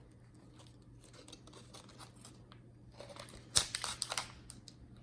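Plastic peanut packet crinkling and rustling as it is handled, starting with a sharp snap about three and a half seconds in; the first three seconds hold only faint ticks.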